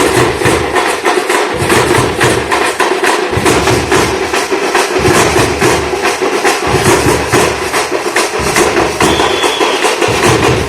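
Festival drum troupe beating a fast, steady rhythm of dense hand-and-stick strikes, about six a second. A brief high whistle-like tone sounds about nine seconds in.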